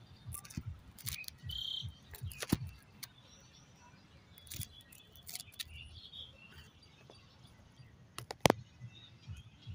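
Handling noise of a mobile phone being set down: scattered rubs, clicks and knocks against the microphone, with one sharp knock near the end.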